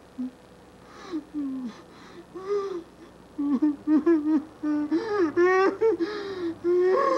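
A man sobbing and whimpering in short, wavering, high-pitched cries. The cries are scattered at first and come louder and close together after about three seconds.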